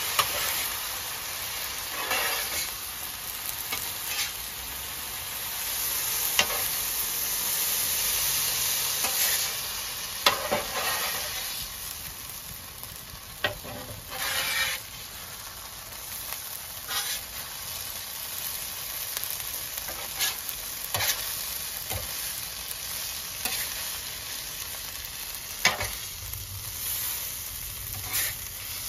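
Rice and diced vegetables sizzling on the steel plate of a Pit Boss portable flat-top griddle, with a steady hiss. A metal spatula scrapes and taps against the griddle top every second or few as the fried rice is turned and chopped.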